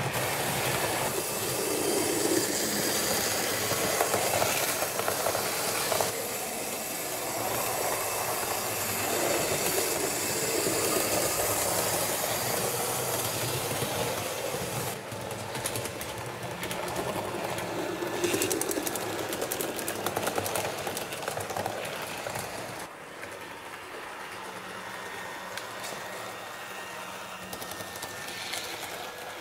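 HO-scale model train running along the track: the motor hums and the wheels rattle and tick over the rails. It is louder in the first half and quieter from about halfway.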